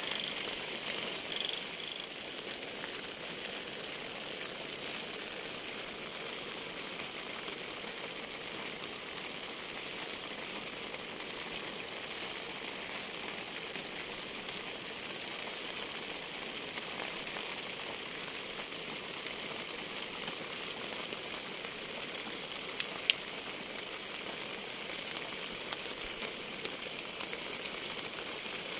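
Steady rain falling, a continuous hiss with scattered drop ticks and two sharper taps about three quarters of the way through. An insect chirps in rapid pulses for the first couple of seconds.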